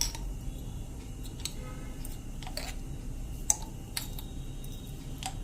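A few faint, scattered light clicks of a spoon against a small bowl as a teaspoon of honey is added.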